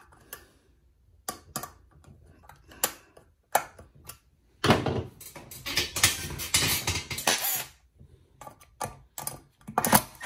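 Clicks and scraping of a screwdriver turning the corner screws that fasten a Secoh EL-80-15 air pump's plastic cover to its base. A denser stretch of rattling and scraping lasts about three seconds in the middle.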